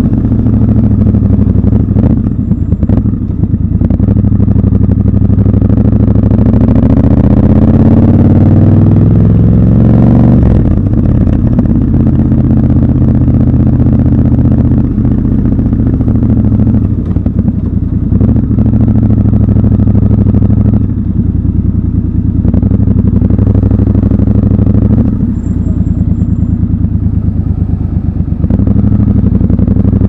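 Triumph Scrambler 1200 XC's 1200 cc parallel-twin engine and exhaust under way in town traffic. Its pitch climbs steadily for several seconds under acceleration and falls away sharply about a third of the way in. It then runs lower and steadier, with a few brief drops as the throttle is rolled off.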